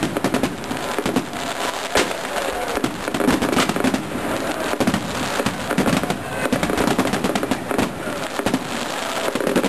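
Fireworks display: a dense, continuous run of sharp cracks and bangs from exploding fireworks.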